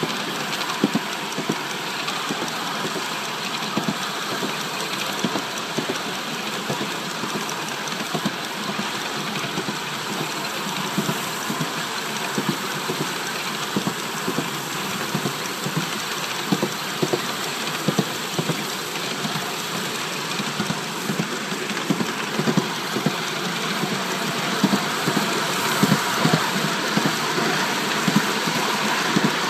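Polly 6 5-inch gauge coal-fired miniature steam locomotive running along the track: a steady rush of exhaust and running gear with many sharp clicks from the wheels on the rails, the clicks getting louder near the end.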